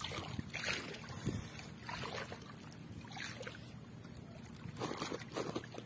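Water splashing and sloshing in irregular bursts as a fishing net is hauled in by hand through shallow water, with a cluster of splashes near the end.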